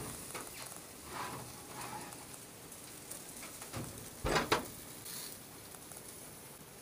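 Quiet kitchen handling sounds as a metal baking tray of food is taken from the oven, with two clunks about four seconds in.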